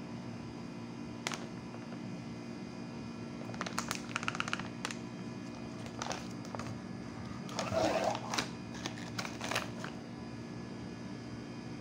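Light clicks and taps of kitchen utensils being handled: a single click, a quick run of taps about four seconds in, and a busier clatter around eight to nine and a half seconds. A steady electrical hum runs underneath.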